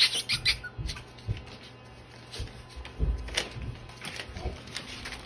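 Small puppies moving about on fleece bedding: soft scuffs and rustles with a few light knocks and thumps, the biggest about three seconds in.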